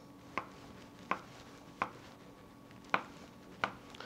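A chef's knife slicing kielbasa on a cutting board. The blade knocks sharply against the board five times, about one knock every 0.7 seconds, with a slightly longer gap before the fourth.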